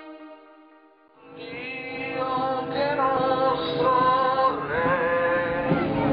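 A sustained chord of intro music fades out within the first second. Then voices singing a hymn come in, with long held notes, over the low noise of a crowd.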